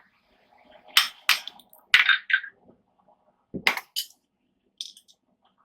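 Irregular metallic strikes and clinks of a hammer and tongs on steel, heading a rivet in a blacksmith's button-head rivet header. There are about half a dozen separate blows, some with a short ring after them.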